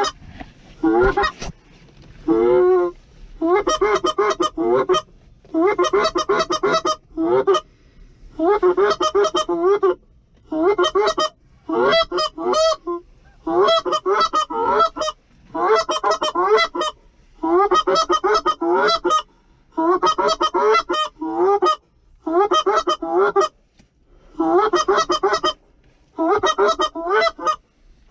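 Canada goose honks and clucks, loud and close, coming in regular bursts about a second long roughly every two seconds.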